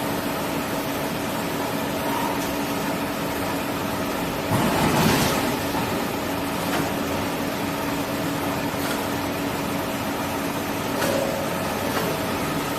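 Tissue-log band saw cutting machine running with a steady mechanical hum, with a louder rushing surge about five seconds in.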